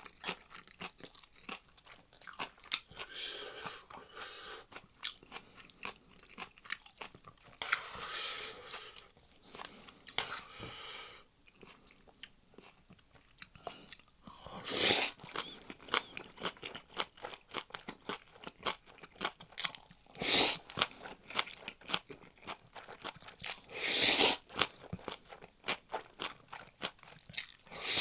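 Close-miked eating of Chapagetti noodles and green onion kimchi: steady chewing with many wet mouth clicks. It is broken by several louder noisy bursts lasting about a second each, a few seconds apart.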